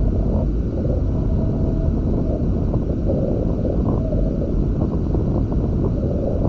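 Wind buffeting the microphone on a Hobie Tiger F18 catamaran under sail: a steady low rumble, with a few faint short hums around the middle.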